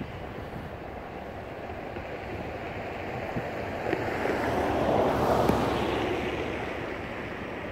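Steady rushing noise of a flooded river and wind. It swells to its loudest about five seconds in, then eases back.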